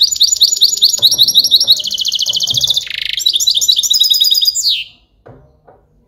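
Caged young European goldfinch singing close by: a loud, fast twittering song of rapid repeated trills that stops after nearly five seconds with a falling note. Two faint knocks follow near the end.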